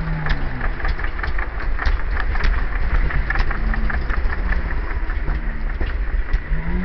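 Trials motorcycle engine running at low revs, with short throttle blips that bend the pitch up and down every second or so, over irregular clicking.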